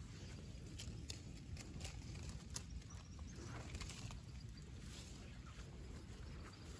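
Faint outdoor background noise: a steady low rumble with a few soft, scattered clicks in the first few seconds.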